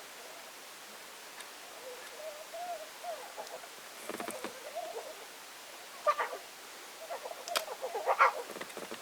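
A one-week-old lion cub making soft, wavering mewing calls while suckling, sounds of contentment. It grows louder about six seconds in and again near the end, with a few sharp clicks among the calls.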